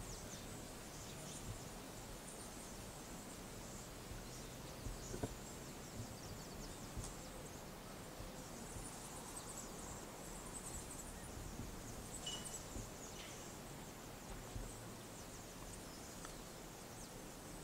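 Quiet outdoor ambience on an open golf course: a steady faint hiss with scattered high, thin chirps now and then and one short high whistle about twelve seconds in.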